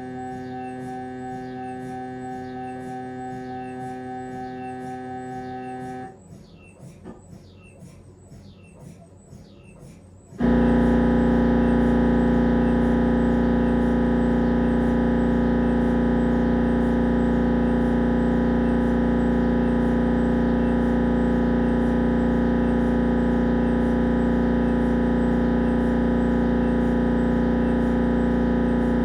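Siemens Magnetom Avanto MRI scanner's gradient coils running a head-scan sequence: a steady droning tone with a faint ticking about twice a second. About six seconds in it drops to a quieter stretch of irregular clicks. About ten seconds in a much louder steady drone starts as the next sequence begins.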